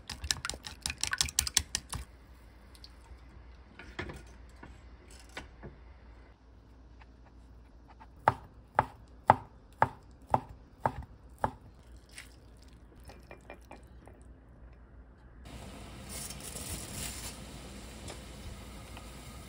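Chopsticks beating eggs in a ceramic bowl, a rapid clatter for about two seconds. Later a kitchen knife slices a rolled thin egg crepe into strips on a cutting board: about seven sharp strokes, roughly two a second, the loudest sounds. Near the end comes the steady hiss of water at a rolling boil with somyeon noodles in it.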